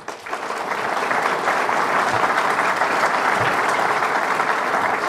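Audience applauding at the end of a talk: the clapping starts suddenly, swells over the first second and then holds steady.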